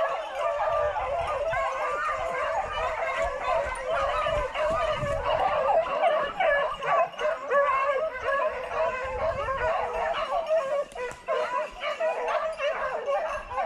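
A pack of hunting beagles baying continuously on a wild boar, many voices overlapping.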